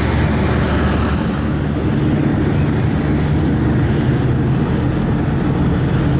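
Superdong IV high-speed passenger ferry's engines running with a steady low drone as the vessel gets under way.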